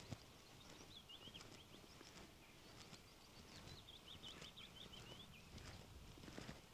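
Faint songbird singing, with a quick run of high warbled notes about halfway through, over soft footsteps on a country lane.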